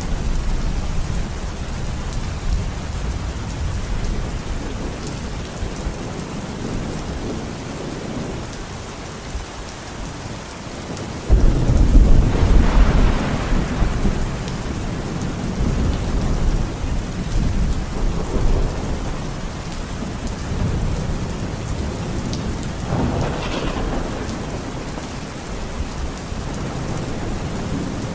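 Heavy rain pouring steadily, with thunder. A loud thunderclap breaks suddenly about eleven seconds in and rumbles on for a few seconds, and a weaker rumble comes later.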